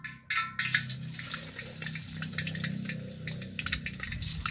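Marinated quails going into hot oil in a steel wok and deep-frying, sizzling and crackling; the sizzle starts about a third of a second in. A low steady hum runs underneath.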